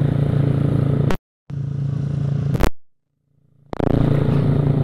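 Vespa Sprint automatic scooter's freshly built engine, still being run in, running at a steady cruise with an even low hum. The sound cuts out completely twice, briefly about a second in and for nearly a second around three seconds in.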